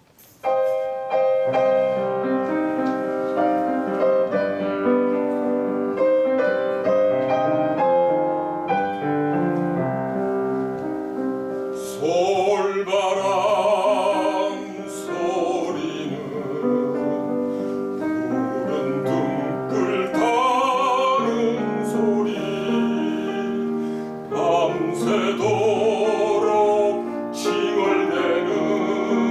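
Solo piano introduction of a Korean art song (gagok). About twelve seconds in, a baritone begins singing with vibrato over the piano accompaniment.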